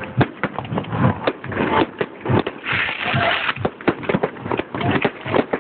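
Fireworks going off in quick, irregular succession, several bangs a second, with a stretch of dense crackling about three seconds in.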